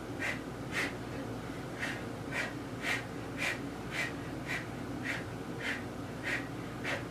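A woman's short, sharp exhalations, about two a second, each breathed out with a shadowboxing punch.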